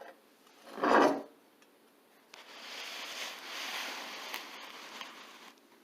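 Metal hardware being worked on a threaded rod: a short knock about a second in, then about three seconds of steady rubbing and scraping as a nut is turned along the rod, with one tick near the end.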